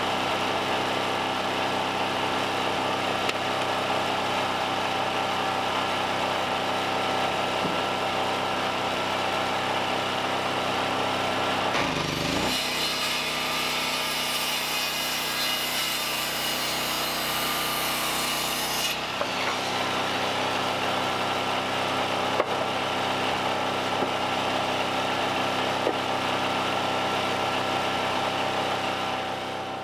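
Portable generator running steadily throughout. About twelve seconds in, an electric circular saw spins up and cuts through a wooden board for about seven seconds, then stops.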